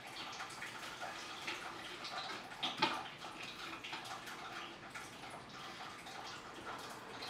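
Dry driftwood branches rustling and clicking as they are shifted and pushed into dry sand in a glass tank, with a sharper knock about three seconds in.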